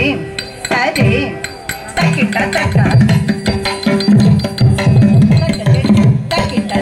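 Live Indian classical dance music: a vocalist singing over a steady drone, then from about two seconds in a hand drum joins with fast, driving rhythmic strokes and the music grows louder.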